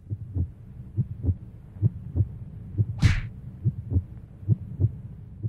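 Heartbeat sound effect: paired low thumps, lub-dub, a little under one beat a second, with a short whoosh about three seconds in.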